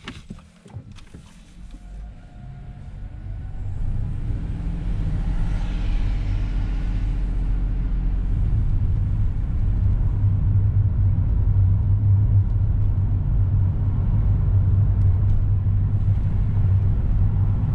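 Car cabin noise as the car gets under way: a few clicks at the start, then engine and road rumble building over the first few seconds and settling into a steady low drone while driving.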